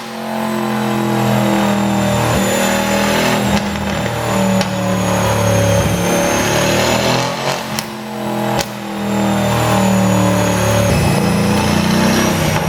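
Mercedes-AMG C63 coupe's twin-turbo V8 exhaust, tuned for pops, revving up and down, with several sharp pops and cracks on the off-throttle moments.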